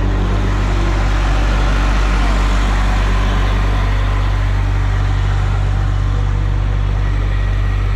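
Heavy engine idling steadily, a loud, deep, even drone.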